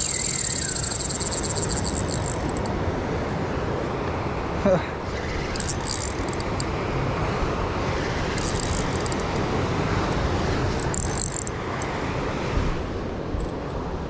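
Steady wind and surf noise, broken by several short spells of fine, rapid high-pitched clicking from a Shimano Saragosa 10000 spinning reel while a hooked shark is played. A single brief thump comes near the middle.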